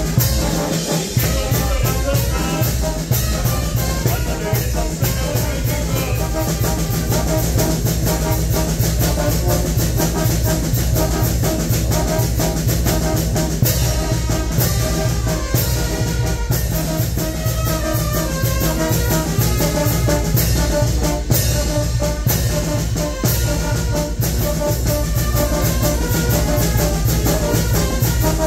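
Mexican wind band (banda de viento) playing live: brass including trombones and trumpets over a heavy low brass bass line, with drums, loud and steady throughout.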